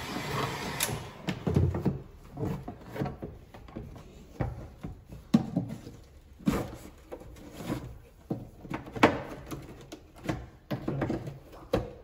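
Peugeot 207 halogen headlight being pried open with a screwdriver: irregular plastic clicks, creaks and knocks as the lens is worked off the housing.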